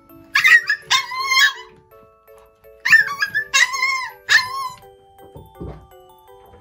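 Micro teacup toy poodle giving high-pitched yapping barks in two short runs of several calls each, over background music.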